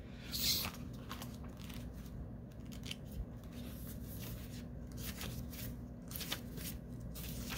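Faint rustling and light clicks of oracle cards and paper being handled, a few seconds apart, over a steady low hum.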